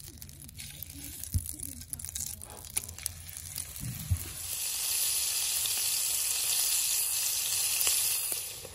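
Sirloin steak frying in a pan on a portable gas camping stove: fairly quiet at first with a couple of light knocks, then a loud, steady sizzle from about four and a half seconds in that stops abruptly near the end.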